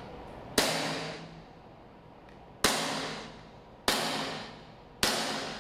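WE Glock 17 Gen3 gas blowback airsoft pistol firing four shots, each a sharp report that fades over about a second. The first comes about half a second in, the second two seconds later, then two more a little over a second apart.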